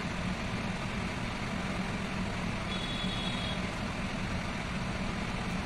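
A steady low background hum, with a short high-pitched beep about three seconds in.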